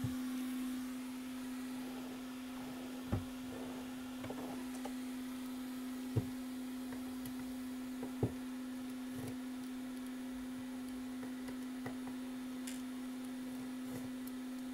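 A steady low hum, one unchanging tone, with a few faint short taps about three, six and eight seconds in.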